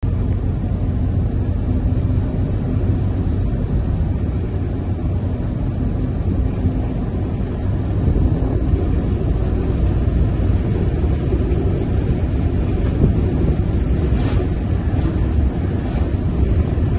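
Tipper truck driving along an open road: a steady low rumble of engine and tyre noise, with a few faint ticks near the end.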